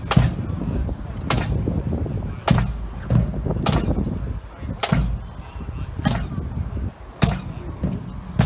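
Marching pipe band's drums beating a slow, steady march beat: a loud, sharp strike with a deep thump about every second and a quarter, with a few lighter hits between.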